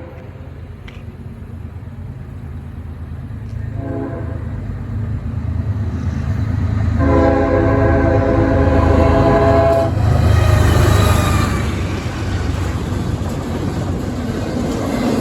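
Horn of a GE ES40DC diesel-electric freight locomotive: a short blast about four seconds in, then a long blast from about seven to ten seconds, over a low diesel rumble that grows louder as the train comes closer. After the long blast the rumble and rushing wheel noise of the passing train take over.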